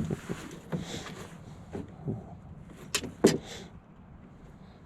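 A run of irregular knocks and clicks from fish and tackle being handled in a canoe, about seven in all, the loudest at the start and a little past three seconds in.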